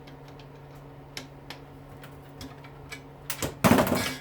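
Scattered light clicks and taps of hand tools on dishwasher motor parts, then a loud clatter lasting about half a second near the end, as parts come loose during dismantling.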